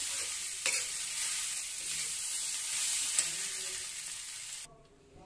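Chopped onions sizzling as they fry in oil in an iron kadhai, stirred with a steel spatula that scrapes and clicks against the pan. The onions are cooked through. The sizzle cuts off suddenly near the end.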